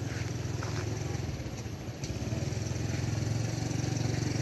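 A small engine running steadily, growing a little louder about two seconds in.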